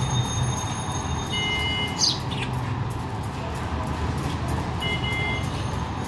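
A steady low rumble of road traffic, with two short steady beeps about three seconds apart and a single brief falling bird chirp about two seconds in.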